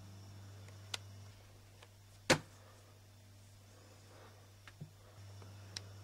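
Quiet room with a steady low hum, broken by a few faint clicks and one sharp, much louder knock about two seconds in.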